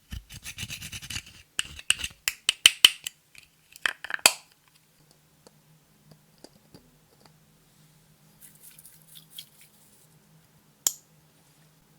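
Clear slime being worked by hand, giving a quick run of sticky clicks and crackles for the first four seconds, then only faint handling and one sharp click near the end.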